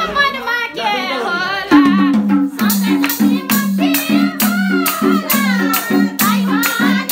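Live Nepali dohori folk music: a sung line trails off in the first couple of seconds, then an instrumental passage takes over with a steady hand-drum rhythm, sharp rattling percussion strokes and a melody line above.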